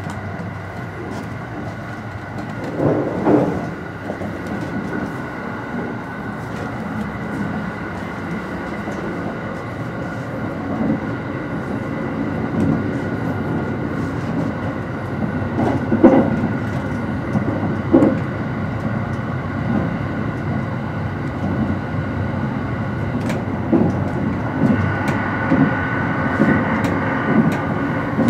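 Running noise inside a 285-series sleeper train car in motion: a steady rumble of the wheels on the rails with a faint steady whine above it. A few louder knocks stand out, with a quicker run of them near the end.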